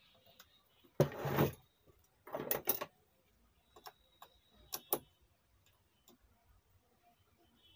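Handling of a metal amplifier chassis and hand tools: a rattling scrape about a second in, another shorter rattle a moment later, then a few sharp clicks and taps.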